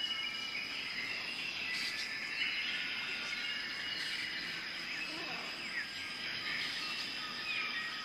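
Tropical rainforest ambience: a steady high-pitched insect drone, with several birds giving short whistled notes and calls over it.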